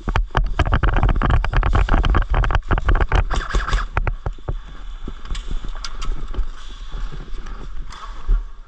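Quick, irregular clicks and knocks, densest in the first four seconds and sparser afterwards, over a steady low rumble of wind on the microphone.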